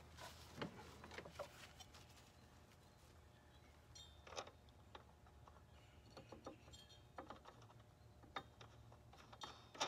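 Faint, scattered clicks and rubbing sounds of hands working on parts under a riding lawn mower.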